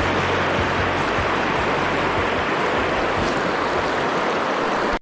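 Fast river water rushing over rapids: a steady, loud hiss of flowing water.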